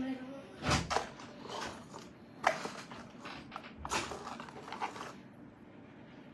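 Handling noise: several sharp clicks and taps as gold jewellery and a hard jewellery box are picked up, moved and set down on a table, spaced irregularly and dying away in the last second or so.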